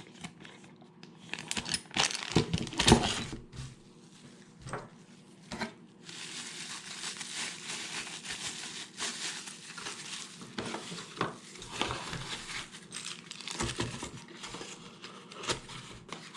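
Packaging being handled while parts are unboxed: several sharp knocks and clicks early on, then steady crinkling and rustling from about six seconds in, with occasional clicks.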